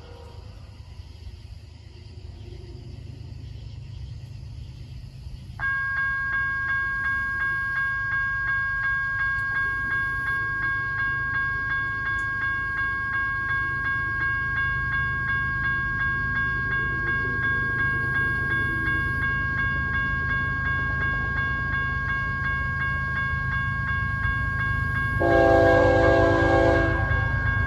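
A railroad crossing bell starts about five seconds in and keeps dinging steadily over the low rumble of an approaching freight train's diesel locomotives. Near the end the lead locomotive sounds its horn for about two seconds.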